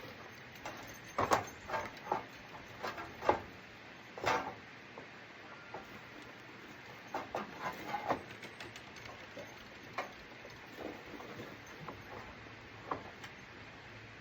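Irregular clicks, knocks and light clatter of hands and tools handling parts on a lawn mower. They come thick and sharp in the first few seconds and grow sparser afterwards.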